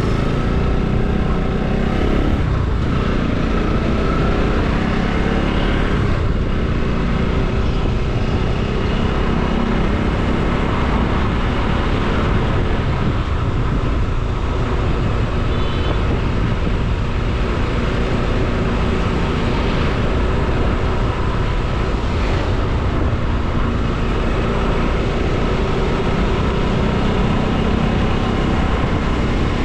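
Motorcycle engine running steadily at cruising speed, heard from the bike itself, with road noise mixed in.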